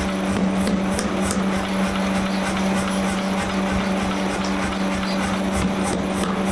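A 75 kg power hammer running with a steady hum under dense mechanical noise, its ram working a red-hot steel bar.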